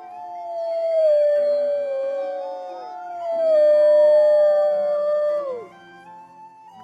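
Several wolves howling together in overlapping long howls that slowly fall in pitch. The main howl swells twice, and each time ends in a quick drop, about three seconds in and again a little before the end.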